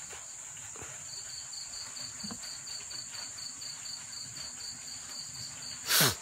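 Night insects, crickets, calling: a steady high-pitched trill all through, and from about a second in another insect chirping in an even pulse, about six chirps a second. A short loud noise cuts in just before the end.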